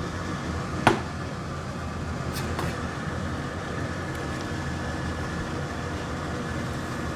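A steady whir of moving air with one sharp click about a second in and a couple of lighter taps soon after.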